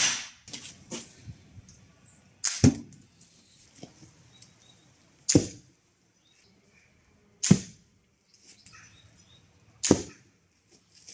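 Homemade rubber-powered wooden pistol crossbow shooting bolts into a padded target: five sharp snaps about two seconds apart, the second a quick double.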